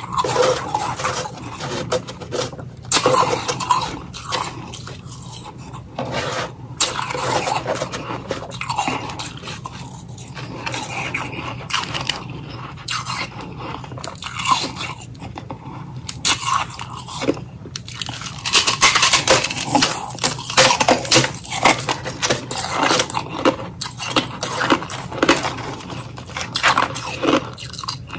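Hollow ring-shaped ice packed with freezer frost, cracked and pulled apart by hand and crunched between the teeth. It makes a long run of sharp crackles and crunches that grow thicker and louder in the second half.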